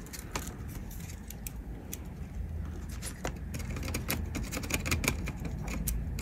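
Scattered small clicks and snips of wire cutters working on thin wires inside a plastic calculator case, over a low steady hum.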